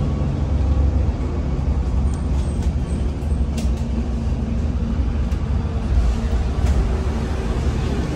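Steady low vehicle rumble with a few faint ticks and rattles over it.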